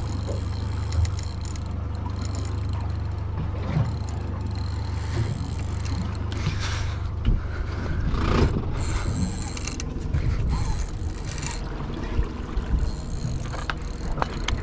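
Fishing reel working under load from a big tuna, its mechanism ratcheting and clicking, over a steady low hum.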